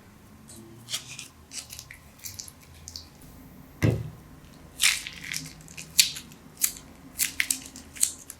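Crunchy slime and plastic pieces being worked by hand: irregular crisp crackles and snaps, with one heavier squelch about four seconds in.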